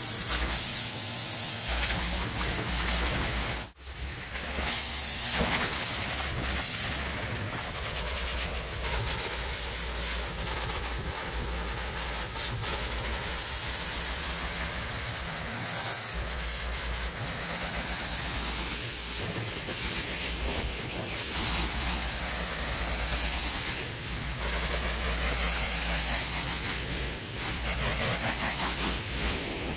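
High-pressure water jet from a pressure-washer lance spraying onto stone patio slabs: a steady hiss that cuts out briefly about four seconds in.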